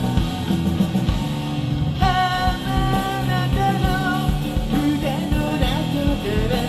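Rock band playing live: a vocalist singing over electric guitars, bass and a steady drumbeat.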